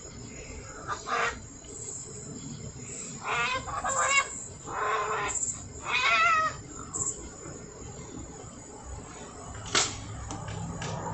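Tomcats yowling at each other in a standoff over a female: four or five loud, wavering, drawn-out calls in the first seven seconds. A sharp click comes a little under ten seconds in, and a low engine hum builds near the end.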